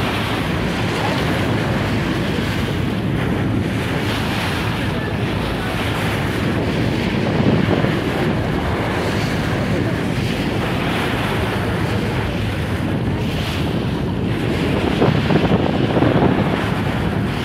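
Choppy river waves splashing and breaking against the side of a boat, under heavy wind buffeting the microphone. The splashing swells louder about halfway through and again near the end.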